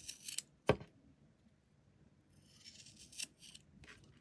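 Scissors snipping through cotton macrame cord fringe, with rasping cuts at the start. A sharp click of the blades closing comes about two-thirds of a second in, and a second run of snips follows around three seconds in.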